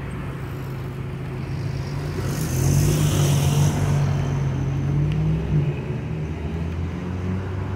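City bus running, a steady low hum that grows louder about two seconds in and eases off near the end. A short hiss comes in around the third second.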